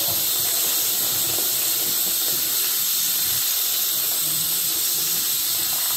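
Steady high hiss of a pressure cooker venting steam as it holds pressure, with faint scraping of a silicone spatula stirring onions in a frying pan.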